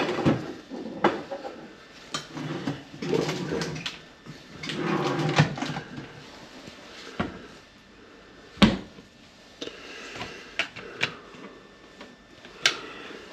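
Scattered clicks and knocks of hand tools and fittings being handled and put back in place, with one sharper knock a little past the middle and a muffled rustling stretch in the first half.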